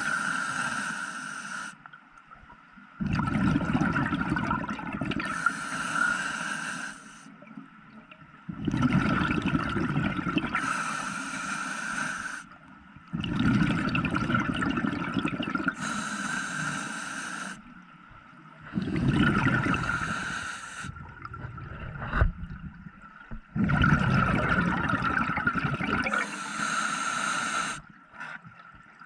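Scuba diver breathing through a regulator underwater: a loud stretch of hissing and bubbling roughly every five seconds, about six breaths, with short quieter pauses between.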